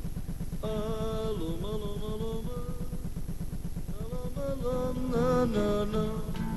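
Folk-style music with a singing voice: a wavering melody over a fast, even rhythmic accompaniment. The melody comes in about half a second in, drops out briefly in the middle, then returns.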